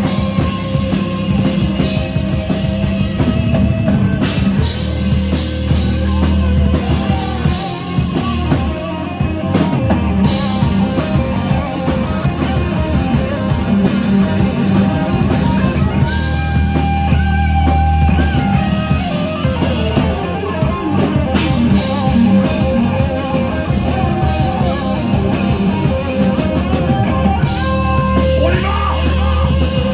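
Live rock band playing: electric guitar, bass and drum kit, loud and continuous.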